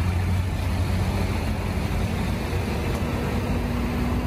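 Heavy diesel machinery running steadily with a low drone during a concrete U-girder lift, with a faint whine coming in during the second half.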